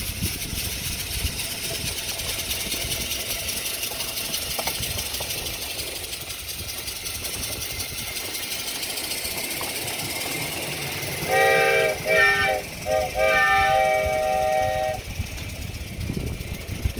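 Compressed-air fireless locomotive, 7¼-inch gauge, running with a steady hissing exhaust. About eleven seconds in, its whistle sounds four blasts of several notes at once, the last one the longest.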